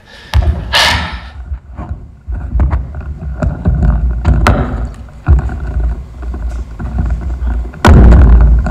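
Clip-on microphone being handled and rubbed against a shirt: heavy uneven rumbling with many clicks and knocks, loudest near the end.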